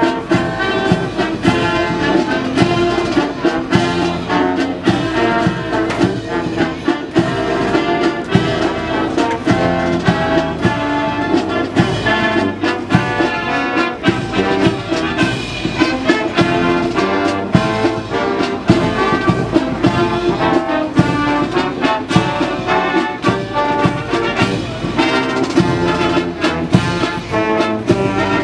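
Marine Corps band of trumpets, trombones, horns and saxophones playing a tune with a steady beat.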